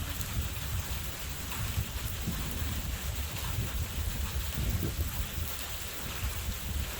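Steady heavy rain with scattered drops ticking, under a gusty low rumble of wind buffeting the microphone during a severe thunderstorm.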